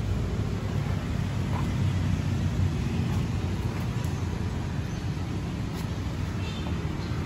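Hyosung GT650R's DOHC V-twin engine idling steadily.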